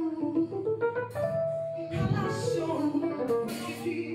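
Live gospel praise music: a woman singing lead into a microphone over held accompanying notes, with other singers joining in.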